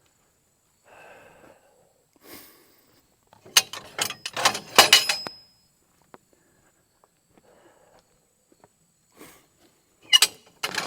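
Two bursts of sharp metallic clanking and knocking, with a short ringing tone, about four seconds in and again near the end: metal parts being handled between cuts. A couple of soft breathy rustles come before them.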